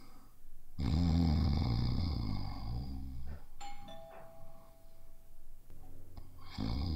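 A man snoring heavily in his sleep. About three and a half seconds in, a two-tone doorbell chime rings, a higher ding then a lower dong that hang on for about two seconds. The snoring starts again near the end.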